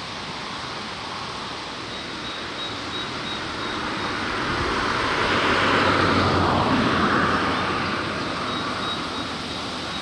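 A distant vehicle passing by: a steady rushing rumble that swells to its loudest about six seconds in, then fades away.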